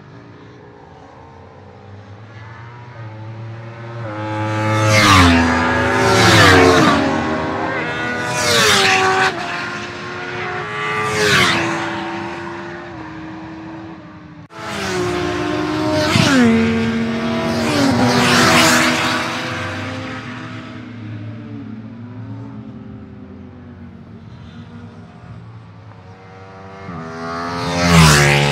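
Racing motorcycles at high revs passing one after another on a race track. The engine pitch of each drops as it goes by, in about seven passes, the last one near the end being among the loudest.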